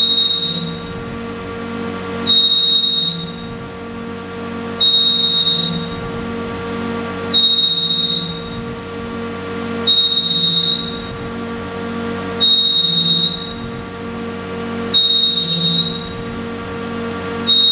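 A high electronic beep repeating about every two and a half seconds, each lasting about half a second. Under it is the steady hum of a Mori Seiki SL253 CNC lathe running, with a lower tone that pulses about three times a second.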